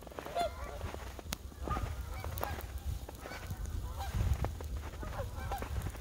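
A flock of geese floating on the river, honking over and over in short, arching calls, over a low rumble.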